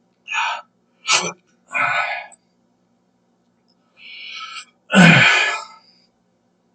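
A man's short breathy gasps and huffs through the mouth, five in all, the loudest about five seconds in, from the burn of a jalapeno pepper on his tongue.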